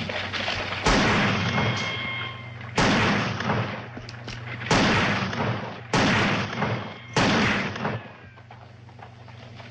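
Five pistol shots fired one after another, about a second and a half apart, each sharp crack trailing off in a ringing echo.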